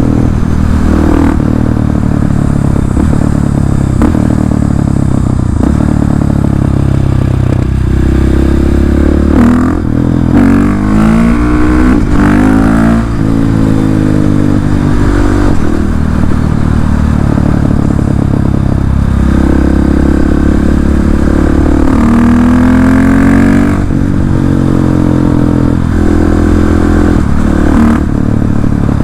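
KTM 690 SMC R's single-cylinder engine through an Arrow exhaust with the dB killer removed, ridden hard with revs rising and falling through the gears. Short crackles spit from the exhaust as the throttle closes. Two clear swings of the revs, up and back down, come about ten to thirteen seconds in and again around twenty to twenty-four seconds in.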